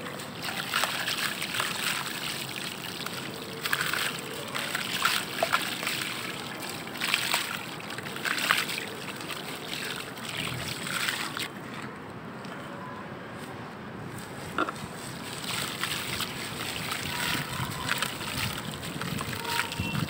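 A cake of dried red dirt crumbled by hand into a basin of water: crumbs and clumps of soil falling and splashing into the water, with sloshing as the hands work through the mud. It comes in irregular bursts, with a quieter stretch about halfway through.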